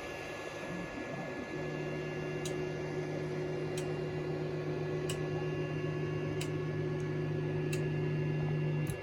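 3D printer running a print: its stepper motors give a steady low hum that starts about a second and a half in and cuts off suddenly near the end. A steady high whine runs underneath, with faint ticks a little more than once a second.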